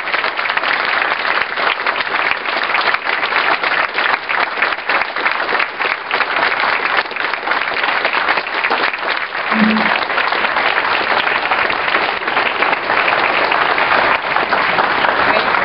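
An audience applauding steadily.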